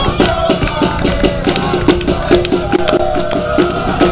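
Supporters' drums beating a fast, steady rhythm under a crowd chanting, with sharp firecracker pops cutting through.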